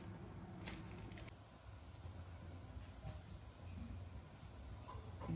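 Crickets trilling steadily in a continuous high chirr, over a faint low hum, with two faint clicks in the first second and a half.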